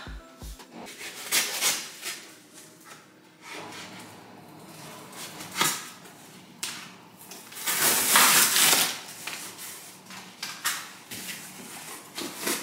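Cardboard box being opened by hand: packing tape cut with a blade and the flaps pulled apart, with scattered knocks and rustles of the cardboard. About eight seconds in there is one loud rasp lasting about a second.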